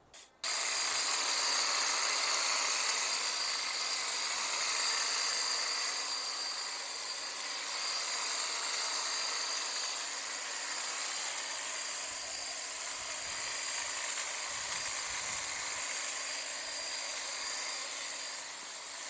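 Kress 60 V cordless brushless electric hedge trimmer, powered from a backpack battery, running steadily while cutting a hedge. It makes an even motor whine with a constant high tone.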